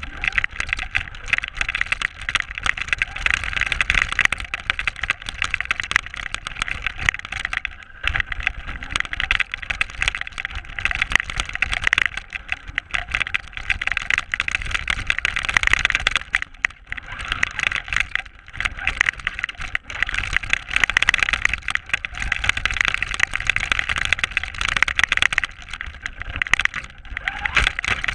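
Traxxas RC car driving through snow, heard from a camera mounted on the car: the drivetrain's whir and rattling clatter swell and drop back every few seconds as the throttle is worked.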